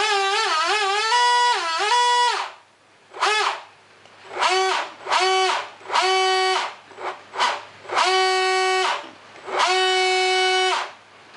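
A bright, brassy horn-like tone: it first wavers and steps between a few pitches, then sounds a string of separate blasts, some short and some about a second long.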